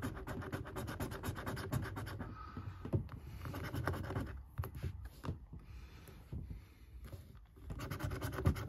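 A coin's edge scraping the coating off a lottery scratchcard in rapid short strokes. It thins to a few scattered scrapes for a few seconds past the middle, then picks up again near the end.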